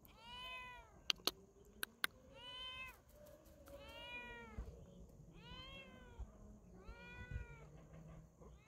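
Kitten meowing repeatedly: about six faint calls, each rising then falling in pitch. There are a few sharp clicks between the first two calls.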